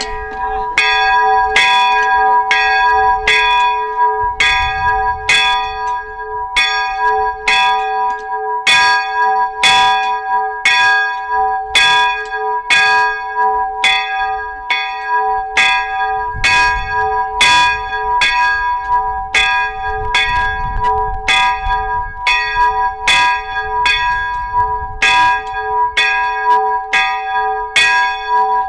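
A church bell rung steadily and continuously, about two strokes a second, each stroke sounding over the bell's ringing from the strokes before.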